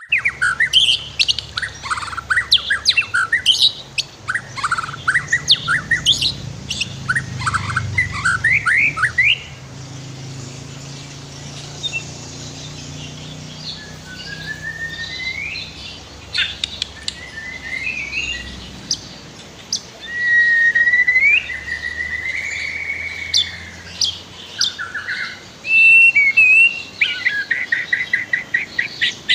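White-rumped shama (murai batu) singing: quick runs of varied whistled notes and trills, then slower gliding whistles and one long warbled note in the middle, and a fast series of repeated sharp notes near the end.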